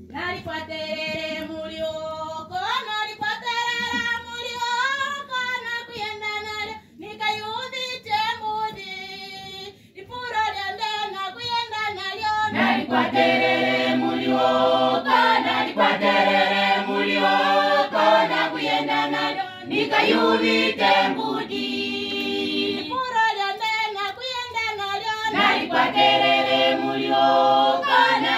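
Youth choir singing: a single high voice carries the opening line alone, and the full choir comes in in harmony about twelve seconds in, louder and fuller.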